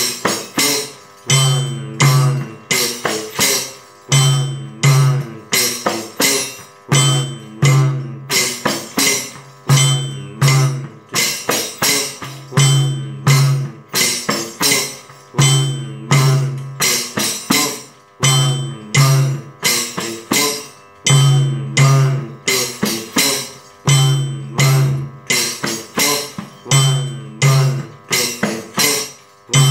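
Kanjira with a synthetic head played by hand, its metal jingles ringing on every stroke. It repeats the basic step, counted 1 1 2 3 4: two deep bass strokes, then lighter strokes, the pattern coming round about every three seconds, in time with a metronome.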